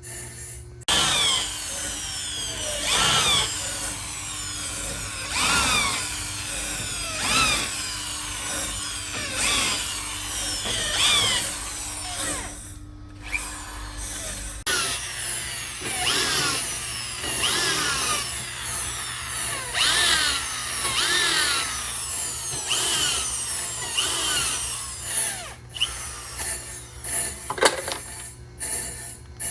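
Power drill running in repeated short runs, its pitch falling during each one, with a brief pause about halfway through.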